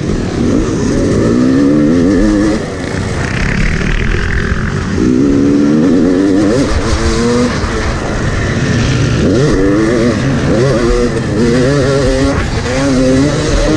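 Yamaha YZ 250 two-stroke dirt bike engine being ridden hard, revs climbing and dropping again and again as the rider works the throttle and gears, with wind rushing over the on-bike microphone. The revs fall away briefly about two and a half seconds in, then build again.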